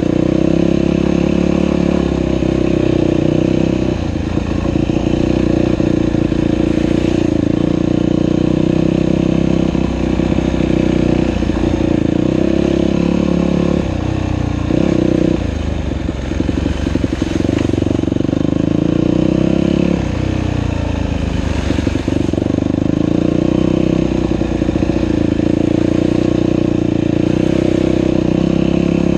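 Dirt bike engine running continuously under changing throttle while riding a trail, its note rising and falling and dipping briefly about halfway through and again about two-thirds through, with scattered short clatters.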